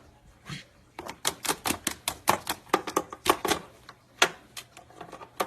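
Parrot's beak biting and chewing at an electrical cord, a run of sharp, irregular clicks and crunches about three or four a second. They begin about a second in and die off near the end.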